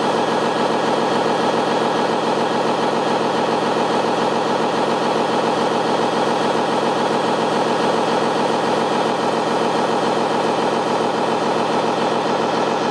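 Steady, even engine-like hum from an RC model airport fire truck as it runs and sprays from its foam monitor.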